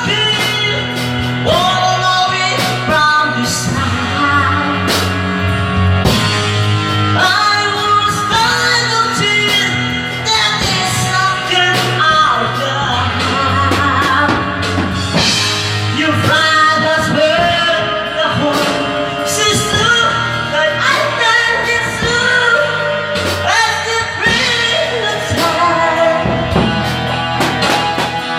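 A song with a singer over a band backing, with steady drum beats throughout.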